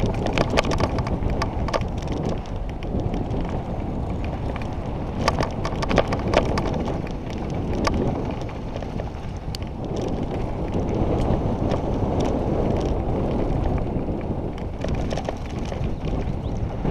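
Wind buffeting a helmet-mounted camera's microphone as a mountain bike rolls fast down a dry dirt trail, with frequent sharp clicks and rattles from the bike and its tyres over loose stones, thickest near the start and about five to eight seconds in.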